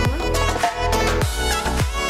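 Background music with a steady beat: deep bass thumps under a melodic lead.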